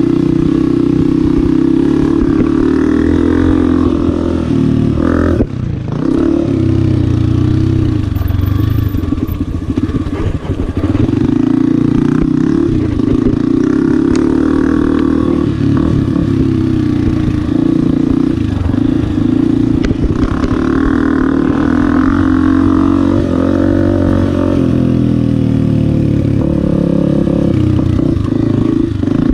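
Honda CRF250F dirt bike's four-stroke single-cylinder engine running hard around a motocross track, the revs rising and falling with the throttle. About five and a half seconds in the engine note briefly drops off before it pulls again.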